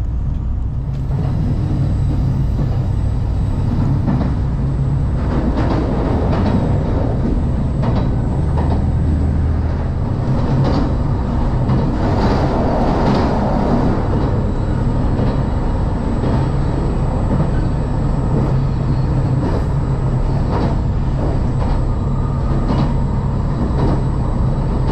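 Inside a JR 2700 series diesel limited express train under way: a steady diesel engine drone mixed with the rumble of wheels on rail, the engine note shifting now and then.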